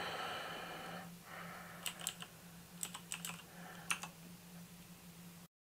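Typing on a computer keyboard: a few separate keystrokes entering a short word, over a low steady hum and after a brief hiss at the start. The sound cuts off suddenly near the end.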